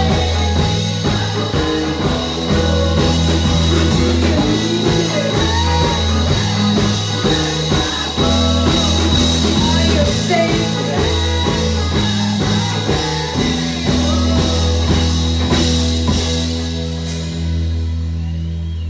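Live rock band playing an instrumental passage: electric guitars and bass over a drum kit with steady cymbal hits. Near the end the drums stop and a held chord rings out.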